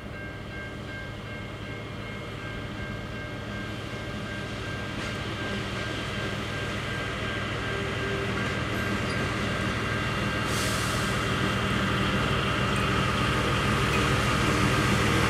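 Two diesel freight locomotives approach and pass, their steady engine hum growing louder throughout. A thin steady whine fades out about halfway, and a higher hiss of the passing train joins in about two-thirds of the way through.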